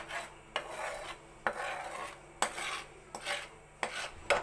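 Spatula stirring and scraping a thick peanut-butter fudge mixture in a steel pan, with a sharp knock of the spatula against the pan about once a second.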